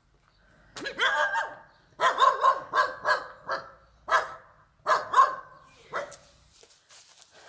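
A dog barking loudly and repeatedly, about eight or nine sharp barks. They come singly, then in a quick run, and are spaced out again near the end.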